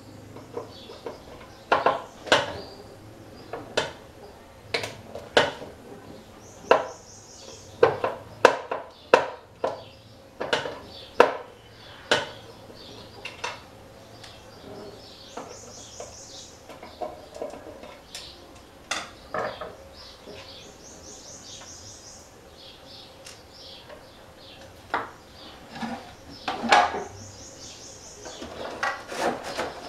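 Irregular clicks and knocks of a small tool and hands on the plastic housing and metal screw terminals while the power cord is disconnected from a sandwich maker's terminal block.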